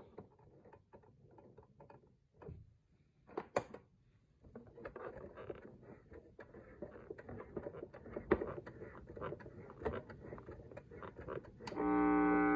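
Faint scattered clicks and rustling from handling the clock radio. About a second before the end, the radio's speaker comes on abruptly with a loud, steady hum.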